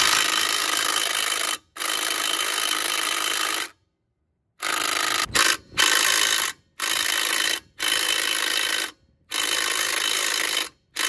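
Bauer 20V quarter-inch cordless impact driver hammering on a wheel lug nut through a socket adapter, in repeated bursts of one to two seconds with short pauses between. It fails to break the lug nut loose.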